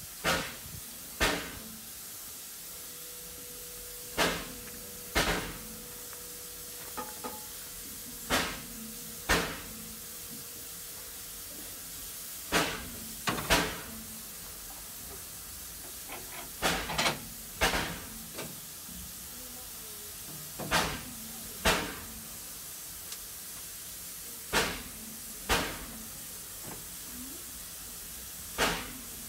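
Steam locomotive standing while it takes on water: a steady hiss of steam, broken by sharp puffs that mostly come in pairs about a second apart and repeat about every four seconds.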